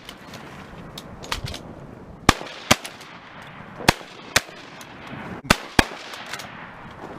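Several shotguns firing in a rapid, uneven volley: about half a dozen loud, sharp shots with fainter ones between.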